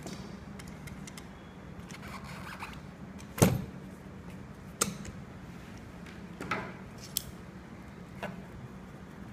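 Inspection-camera parts being packed into a foam-lined aluminium carry case: a few separate knocks and clicks, the loudest about three and a half seconds in as the wheeled camera's mounting plate is pressed into place, with a soft rustle before it.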